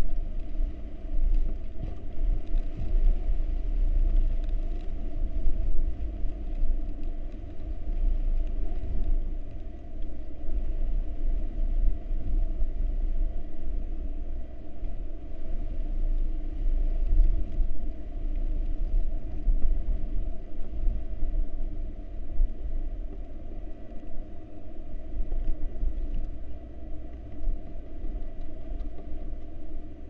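Storm wind buffeting a wooden barn owl nest box and its microphone: a deep, gusty rumble that swells and fades irregularly.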